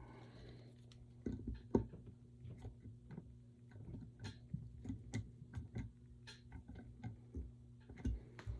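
Faint, irregular small clicks and scrapes of a hand screwdriver turning a screw into a tapped hole in a metal plate. The screw is being deliberately cross-threaded.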